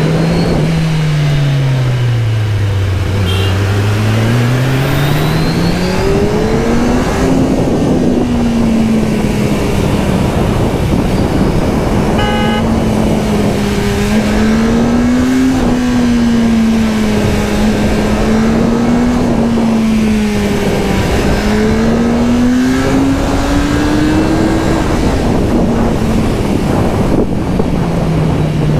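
Kawasaki Z1000SX's inline-four engine pulling through a run of hairpin bends, its note dropping as the throttle closes into the first bend, climbing back hard, then rising and falling with each turn, over steady wind rush.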